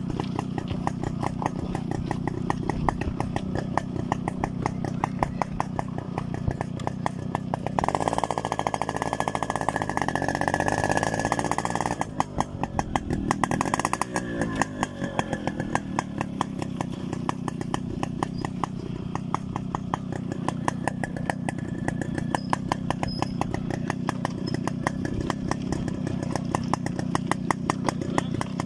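Yamaha RX two-stroke single-cylinder motorcycle engine running with a fast, even popping pulse as the bike rides over a gravel track. The engine note changes for a few seconds about eight seconds in.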